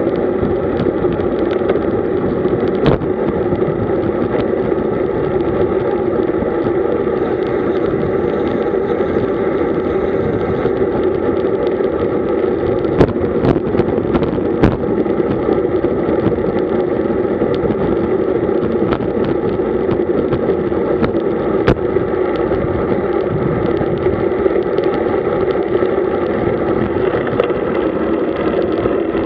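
Steady, muffled rush of wind and road noise on a camera riding with a road bike at about 45 km/h, with a few sharp knocks from bumps in the road.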